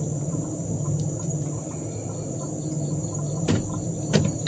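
A steady low drone with a constant thin high hiss above it. Two sharp knocks come near the end, the second the louder.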